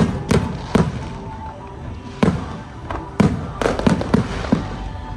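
Aerial fireworks bursting in an irregular series of sharp booms, about a dozen in all, coming faster in the second half.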